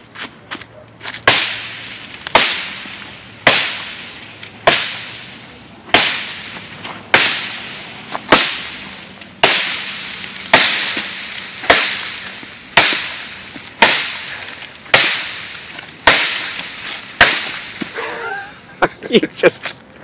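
Unsharpened Maniaxe prototype axe chopping into a small tree trunk: a sharp chop about once a second, some fifteen in a steady rhythm, each dying away quickly. Near the end come a few quicker, lighter hits.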